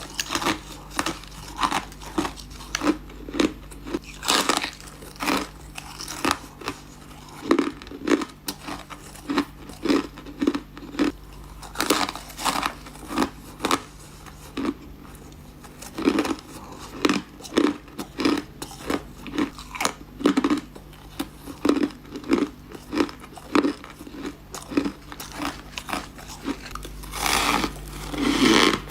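A person biting and chewing ice, close to the microphone: a long run of sharp crunches, about one or two a second, with a few quicker clusters of cracking.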